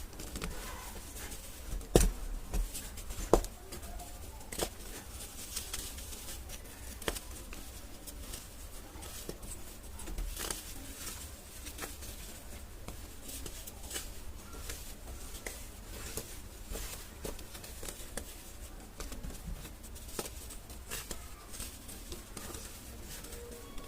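Crunchy mud-sand clay being crushed, a steady run of small crunches and crackles, with two louder cracks about two and three and a half seconds in.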